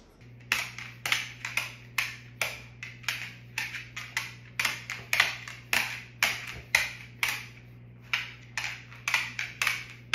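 Hands patting a dog's sides in a quick, even rhythm, about three pats a second, over a low steady hum.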